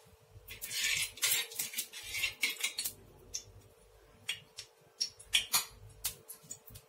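Cooking oil poured from a glass bowl onto a hot tava (flat griddle), with a short hiss about half a second in, followed by scattered clinks and scrapes as the bowl is moved over the griddle to spread the oil.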